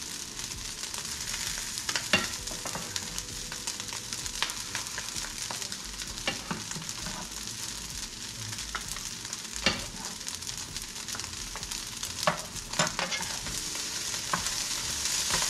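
Fried rice sizzling in a hot pan while a spatula stirs it, with a handful of sharp clinks and scrapes of the utensil against the pan.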